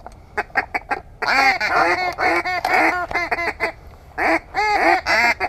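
A hand-blown waterfowl hunting call sounded in quick runs of short, loud honking quacks, several a second, each rising and falling in pitch, with a couple of brief pauses. This is calling to draw incoming birds toward the blind.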